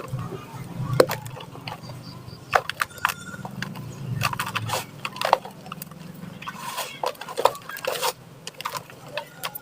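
Dry cement balls and chunks crumbling and cracking under the fingers: irregular sharp crunches and snaps, with dry bits trickling between them.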